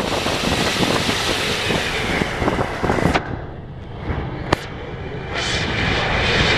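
Hino AK diesel bus on the move, heard from inside the passenger cabin: a steady engine drone with body rattles and road and wind noise. The high road noise drops away about three seconds in, followed by a sharp knock and then a short hiss.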